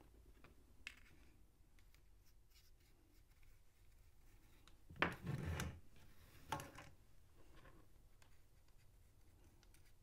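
Quiet handling on a cutting mat as thin belt strips and a sheet of paper are moved about: a small click about a second in, a short rustle about five seconds in, and another brief one about a second and a half later.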